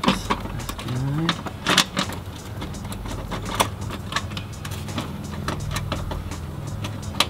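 Scattered small clicks and knocks of metal hardware as mounting bolts are fitted by hand into a fuse block bracket, over a steady low hum.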